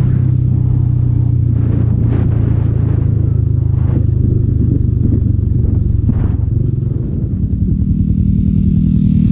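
Motorcycle engine running steadily while ridden at speed, with a rush of noise over it. About seven seconds in, the sound changes to a higher steady engine note.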